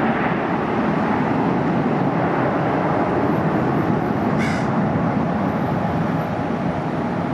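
Airbus A330-300's twin Pratt & Whitney PW4000 turbofans at takeoff thrust as the airliner climbs out, a steady rush of jet noise that eases slightly near the end as it draws away.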